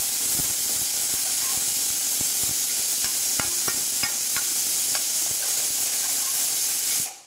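Spiced tomato-onion masala paste sizzling in oil in a pan, stirred and scraped with a spatula that clicks against the pan now and then. The sizzle cuts off suddenly near the end.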